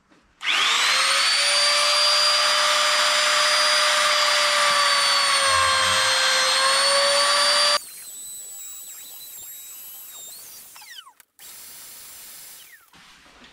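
Katsu compact router running with a grooving bit as it cuts a groove along a wooden board. It starts with a rising whine about half a second in, holds a steady high whine that dips slightly in pitch under load, and shuts off abruptly after about seven seconds. A quieter whine with falling tones follows, and near the end comes the steady rush of a vacuum hose sucking up the dust.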